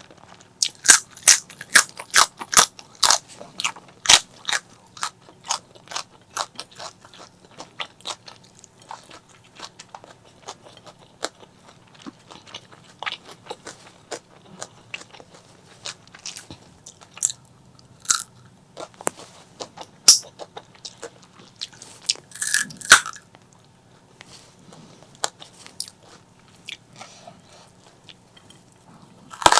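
Close-miked eating: crisp crunching bites and chewing, rapid and dense for the first few seconds, then sparser, with a few loud crunches about two-thirds of the way through.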